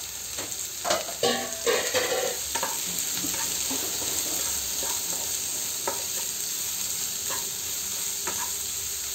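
Chopped onions, garlic and green chillies sizzling in hot oil in a kadai while a wooden spatula stirs them. A burst of scraping and knocking comes about a second in, then occasional taps over the steady sizzle.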